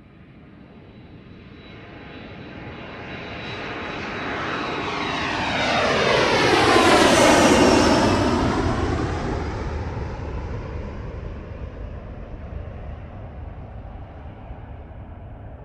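An aircraft flying past: it grows louder to a peak about halfway through, then fades away.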